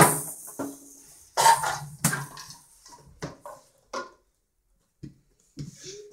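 A handful of light, separate taps and knocks on the floor as a crawling toddler's hands and small cat-toy balls hit it, with a brief burst of voice about a second and a half in.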